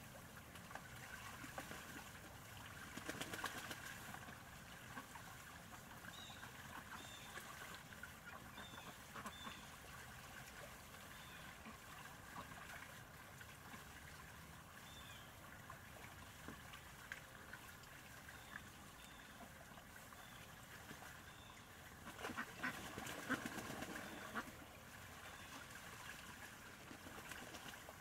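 Domestic ducks bathing in a shallow plastic tub of water: faint splashing with occasional soft quacks. Louder bouts of splashing come a few seconds in and again near the end.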